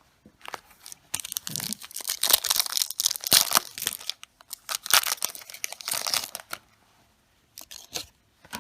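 A trading-card booster pack wrapper being torn open and crinkled, in rustling spurts for about five seconds, followed by a few light clicks near the end.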